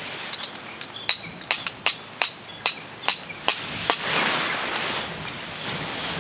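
About a dozen sharp, light clicks, roughly two to three a second, from the door fittings of a tent's inner tent as it is fastened and worked at the top of the doorway. They are followed, about four seconds in, by a short rush of fabric rustling.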